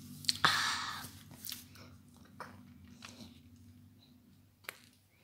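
Hands working pastry dough around sausages on a work surface: a short rustling scrape about half a second in, then a few light clicks and taps, over a faint low steady hum.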